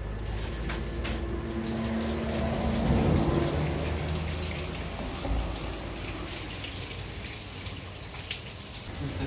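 Tap water running steadily onto a plucked chicken and the hands washing it at a metal sink table, with a low steady hum underneath in the first few seconds.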